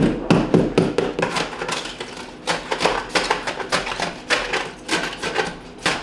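A thin blade repeatedly stabbing and chipping at thick ice built up in the bottom of a GE bottom-freezer. Sharp hard strikes come in quick, irregular flurries. The ice has built up because the freezer's drain line has frozen.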